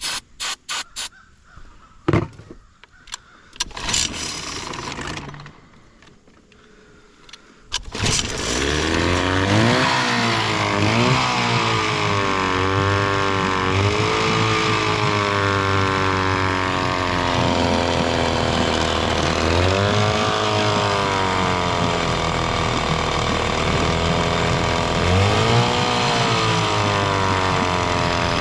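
9.8 hp Mercury outboard motor being started. A few sharp clicks and knocks and a short rushing noise come first, then the engine catches about eight seconds in and keeps running loudly, its pitch rising and falling several times. The owner says this motor won't start without the choke.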